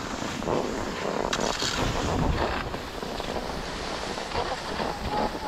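Skis hissing and scraping over groomed, packed snow while skiing downhill, with wind rushing over the camera's microphone.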